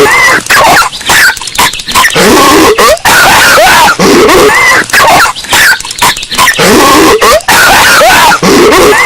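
Patrick Star's cartoon voice coughing and hacking, boosted until it distorts, very loud and harsh. The same stretch of coughing repeats about every four seconds as a loop.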